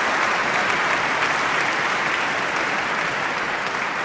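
Audience applauding, slowly dying down.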